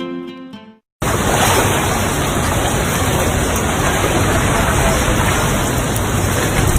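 Acoustic guitar music fades out, then after a moment of silence a hard cut about a second in to a loud, steady rushing noise.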